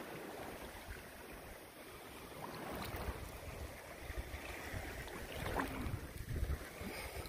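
Shallow seawater lapping and sloshing around a person wading with a phone held just above the surface, with wind buffeting the phone's microphone in low rumbling gusts.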